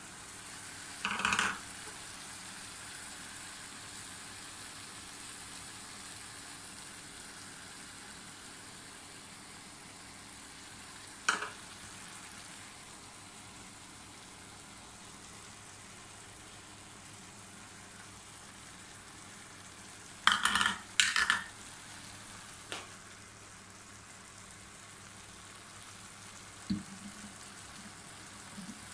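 Rice in sugar syrup sizzling faintly in a non-stick pan on the stove, a low steady hiss. A few short sharp taps of a spoon and plastic cup against the pan break it, the loudest a quick pair about two-thirds of the way through.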